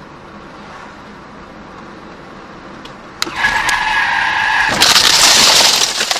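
Steady car road noise, then about three seconds in a car's tyres start squealing under hard braking, a high steady screech. This gives way to a louder, harsh skidding rush for about a second and a half, with a few sharp knocks as it dies away.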